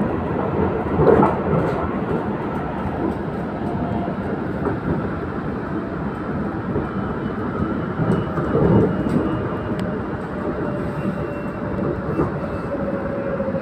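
KTM Komuter electric multiple unit running, heard inside the carriage: steady rumble of wheels on rail, briefly louder twice. Over the second half a faint motor whine slowly falls in pitch, a sign of the train easing its speed.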